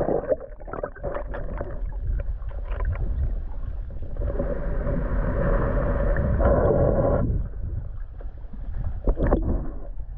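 Water sloshing and gurgling around a kayak, over a steady low rumble, with scattered knocks. A louder rushing noise swells about four seconds in and stops about seven seconds in.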